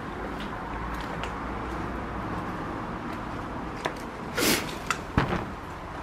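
Steady outdoor background hiss, broken by a few short scuffs and knocks about four and five seconds in.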